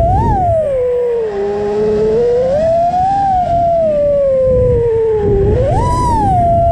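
FPV quadcopter's motors and propellers whining, the pitch sliding down and up as the throttle changes, with a sharp rise about five and a half seconds in as the motors spin up, then holding steady. A low rushing noise runs underneath.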